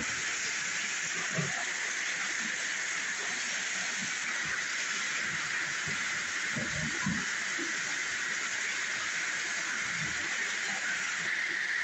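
Steady rush of water pouring from a pipe into a pool and splashing on the surface, with a few faint low knocks here and there.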